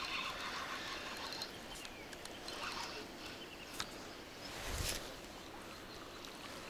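A hooked carp being played to the bank on a spinning rod: quiet outdoor pond background with faint bird calls, and a brief splash about five seconds in as the fish thrashes at the surface.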